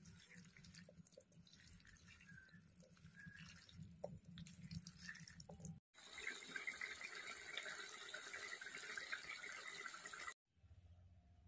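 Fish frying in hot oil in a pan: a steady sizzling hiss with crackle, starting suddenly about six seconds in and cutting off about four seconds later. Before it, soft handling noises over a low hum as fish pieces are mixed with spice paste by hand.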